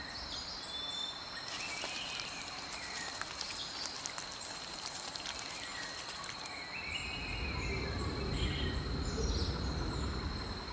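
Tropical rainforest ambience: a steady high-pitched insect drone, with short chirping calls repeating over it. A dense crackling insect chorus joins from about a second and a half in to about six and a half seconds, and a low rumble comes in over the last few seconds.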